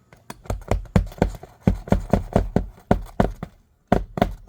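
Hammer driving a roofing nail through an asphalt shingle, a quick run of sharp strikes about four a second with a short break near the end.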